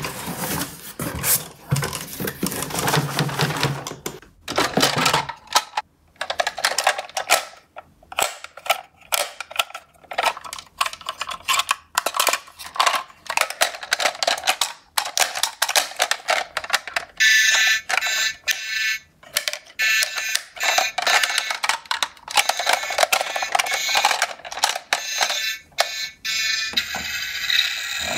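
Cardboard box being opened, then plastic toy garbage trucks knocking and rattling against each other and the box as they are lifted out and handled. From about two-thirds of the way in, a repeated electronic beeping sounds among the clatter.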